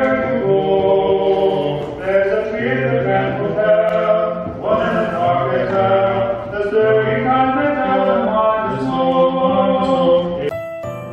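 Animatronic singing reindeer display playing a sung Christmas song: several voices in harmony holding long notes, with a thin, muffled, speaker-like sound. About ten and a half seconds in it cuts abruptly to a brighter Christmas music track with jingling chimes.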